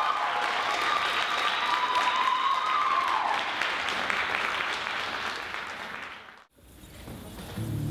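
Audience applauding and cheering, with a few high held whoops over the clapping in the first few seconds. The applause fades and cuts off about six and a half seconds in. Just before the end a low sustained music drone begins.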